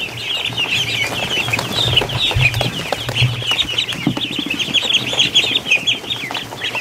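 A barn full of ducklings peeping non-stop, many short high cheeps overlapping into one continuous chatter.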